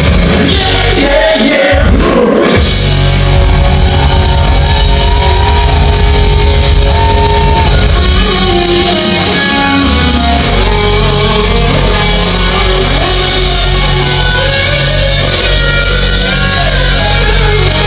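Live hard rock band playing loud: distorted electric guitar, bass guitar and drum kit, with a singer's vocal in places. The bass and drums drop out briefly about two seconds in, then the band carries on.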